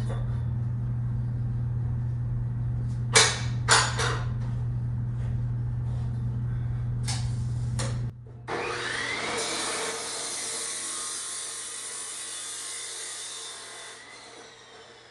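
A few sharp metal clanks as steel tubing is handled, over a steady low hum that stops about 8 seconds in. Then a chop saw spins up with a rising whine and cuts through the steel tube with a high, even rush, and winds down with a falling whine near the end.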